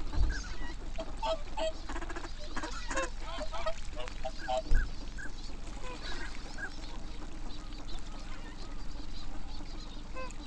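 A flock of whooper swans calling with many short honks and bugles, overlapping and scattered throughout, with ducks quacking among them. A low thump about five seconds in.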